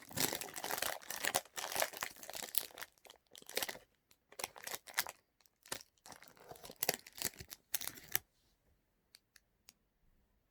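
Chocolate bar wrapper being torn open and crinkled: dense crackly rustling for the first few seconds, then scattered shorter rustles that stop about eight seconds in, followed by a few faint clicks.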